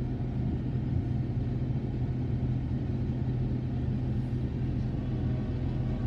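Empty coal hopper cars of a freight train rolling past, a steady low rumble with a constant low hum underneath.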